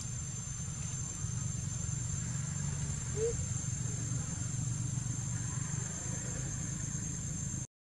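Outdoor ambience: a steady low rumble under a steady high insect drone, with one short rising squeak about three seconds in. The sound cuts out to silence just before the end.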